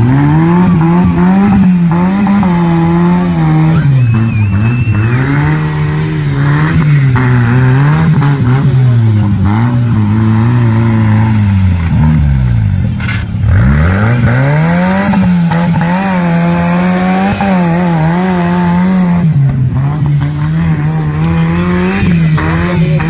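Homemade race tractor's engine running hard and revving up and down as it drives the course, with a deep drop in revs and a quick climb back a little past halfway.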